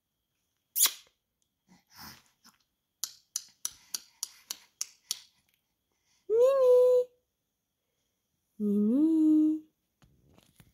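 Mouth sounds from a person: a short hissing sound near the start, then a quick run of about nine tongue clicks, roughly four a second, followed by two brief hummed or cooed sounds, each rising in pitch before levelling off.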